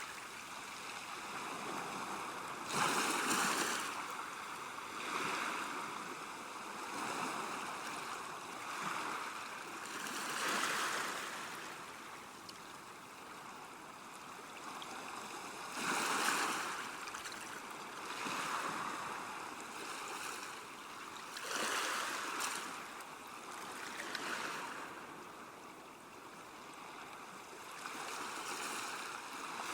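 River water washing at the bank, a steady rush that swells and eases in irregular surges every few seconds.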